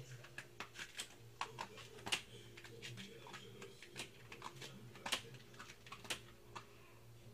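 A Bengal cat working at a cloth rag on a doormat: irregular sharp clicks and scratches, a few a second, over a steady low hum.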